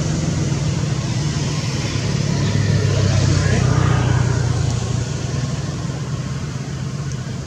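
Steady low engine drone from a passing motor, slowly fading toward the end.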